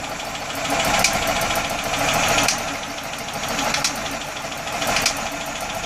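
Universal Atomic 4 four-cylinder gasoline inboard engine running at idle, with a sharp pop about every second and a half, four times. The popping is the fault under investigation.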